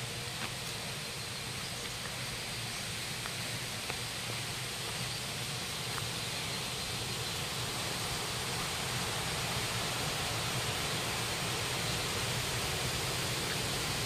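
Steady rush of flowing river water, an even hiss with no rhythm, with a couple of faint ticks.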